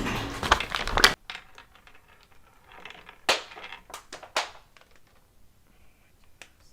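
Loud background sound, music-like, cuts off abruptly about a second in. It is followed by a few scattered, sharp crinkling and crunching clicks against a quiet room.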